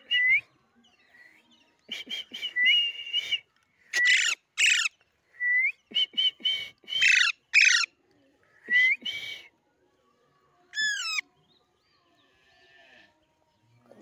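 Young Alexandrine parakeets calling while being hand-fed: clusters of short, rapidly repeated chirps and loud harsh squawks, loudest about four and seven seconds in. After a pause, a single falling whistled call about eleven seconds in.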